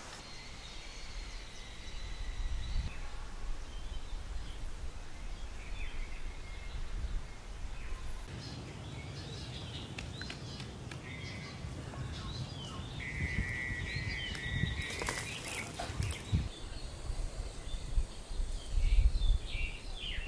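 Outdoor rural ambience: a low steady rumble with scattered bird chirps and short trills, and a few brief rustling or crunching noises near the end.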